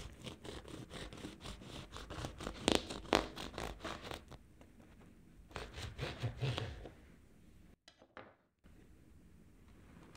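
Knife sawing down through a baked blueberry muffin with a crumbly streusel topping: a quick run of crackly scraping strokes, then a second short burst of scraping as the blade reaches the paper liner.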